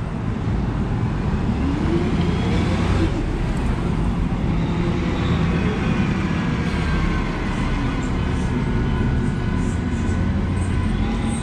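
Compressed-natural-gas city transit bus pulling away from a stop: a steady low engine rumble, with a whine that rises in pitch as the bus gets under way, over street traffic.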